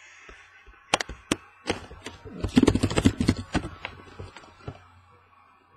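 A run of sharp taps and knocks: two single clicks about a second in, then a dense, loud clatter around the middle that dies away.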